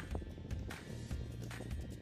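Background music with a bass line and a percussive beat.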